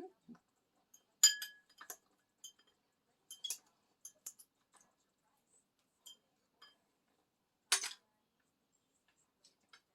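Spoon clinking and tapping against a dish while eating: a ringing clink a little over a second in, a string of lighter taps and scrapes, and a louder clatter near the end.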